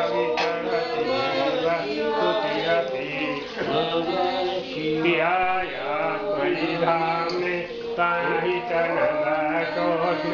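Hindu devotional chanting, sung as a continuous melody by voices, typical of a mantra chanted during the abhishek of a Shiva lingam.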